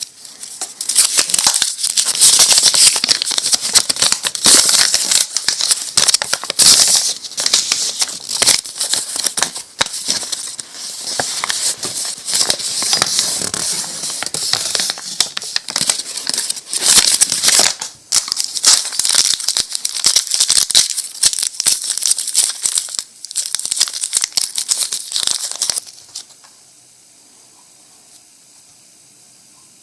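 Plastic Pez dispenser packaging crinkling and rustling as it is handled and opened close up. It stops about 26 seconds in, leaving faint steady room hiss.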